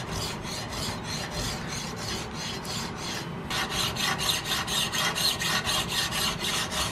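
A file being draw-filed along a face of a steel muzzleloader rifle barrel, in quick, even rasping strokes. The strokes grow louder about halfway through.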